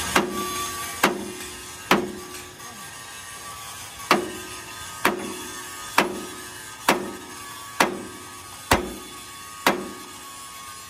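Hammer blows on steel, about one a second, each with a short metallic ring. There are ten strikes, with a pause of about two seconds after the third.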